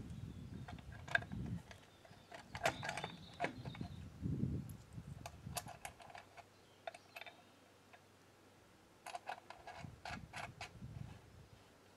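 Wooden board being handled and shifted against a tractor's side: scattered light knocks and clicks with dull low rustling of handling.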